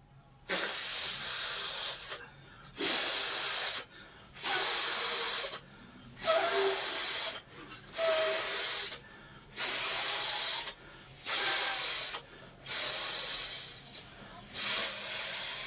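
A person blowing up a rubber balloon by mouth: about nine long, breathy blows into the balloon, each a second or so, with short pauses for breath between them.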